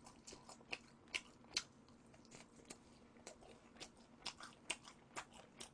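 A person chewing sauced boneless fried chicken: faint wet mouth clicks and smacks at an irregular pace, about two or three a second.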